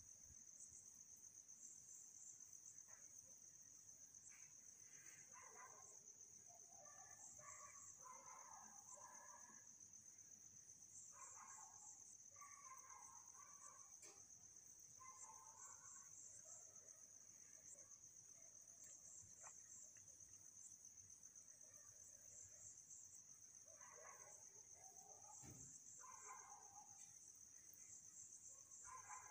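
Near silence with faint, steady, high-pitched insect chirring in the background, pulsing evenly. A few soft scattered sounds come and go in between.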